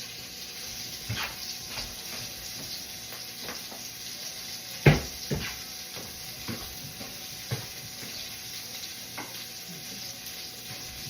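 Food sizzling in a frying pan, with utensils and cookware clinking and knocking now and then and one loud clatter about five seconds in.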